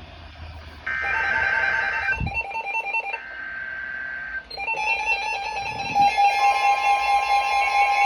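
Emergency Alert System header data bursts: two short, harsh bursts of data tones. About four and a half seconds in, a steady, loud two-tone attention alarm starts, and a further tone joins about two seconds later. Together they signal the start of a new emergency alert.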